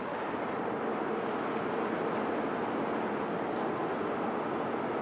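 Steady hum of city traffic, a continuous wash of passing cars with no single event standing out.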